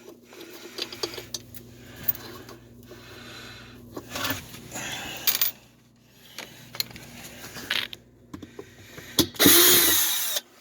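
Phillips screws on a washer's plastic drive hub being unscrewed and worked loose, with small metal clicks, scrapes and ratcheting, and a louder clatter near the end.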